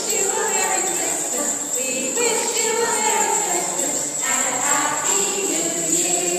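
Children's choir singing together, with a steady musical sound throughout.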